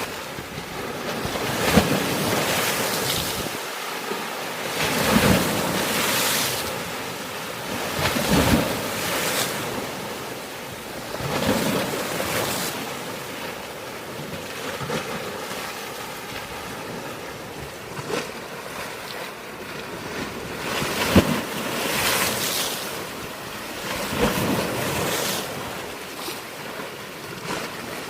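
Sea waves breaking and splashing against a rocky shore: a steady wash of surf with a sudden crash every few seconds, and a calmer stretch midway.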